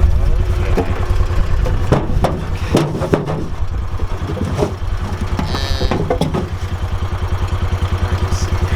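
A vehicle engine idling with a steady low throb, with several knocks and clatters about two to three seconds in and again around six seconds.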